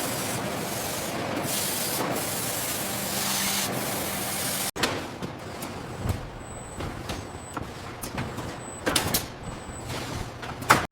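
Factory noise: a steady hiss for the first few seconds, then after an abrupt cut an irregular clatter of metal knocks and clanks, with the sharpest clank just before the end.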